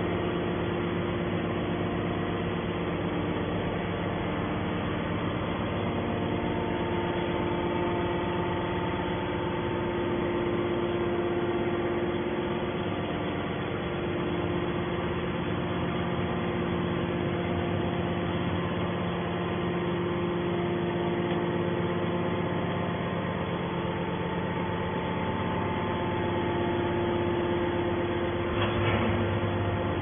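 Hydraulic power unit of an HBM 200 metal scrap baler running: a steady mechanical hum made of several held tones, which shift slightly in strength partway through. A short knock near the end.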